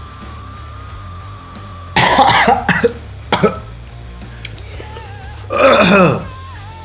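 A man coughing and gagging on a mouthful of chicken wing: harsh bursts about two seconds in, a short one a moment later, and a longer, louder retch near the end, his body refusing to swallow after overeating. Background music plays underneath.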